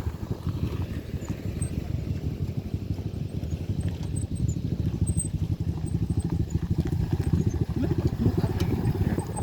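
Motorcycle engine running under load with a rapid, steady firing beat as it climbs a steep hill.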